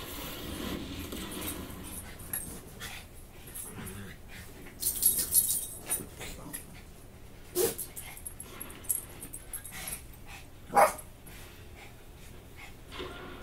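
Small dogs wrestling in play, with growling early on and two short, sharp barks, one about halfway through and one near the end.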